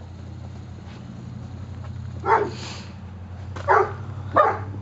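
A dog barking: three short barks in the second half, over a steady low hum.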